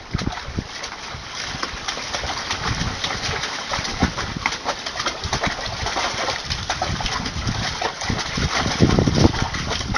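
German shepherd puppy pawing and splashing in a plastic tub of water: irregular slaps and sloshing, loudest about nine seconds in.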